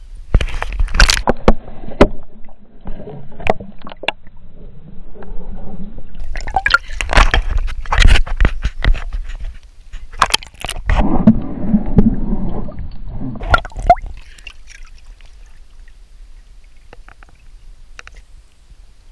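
Dog splashing and pawing in the shallow water of a paddling pool: repeated bursts of splashing and sloshing water for about fourteen seconds, then much quieter.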